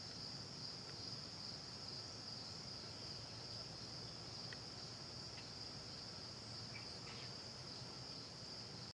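Faint, steady chorus of crickets, a continuous high-pitched trill, with a few short faint chirps about halfway through.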